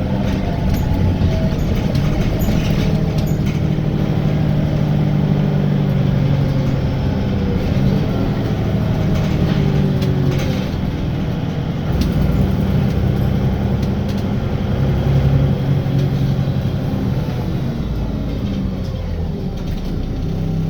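Wright Gemini 2 double-decker bus on a VDL DB300 chassis, heard from inside the saloon while on the move: the diesel engine's steady hum rises and falls with the driving, under tyre and road noise and occasional rattles and clicks from the body.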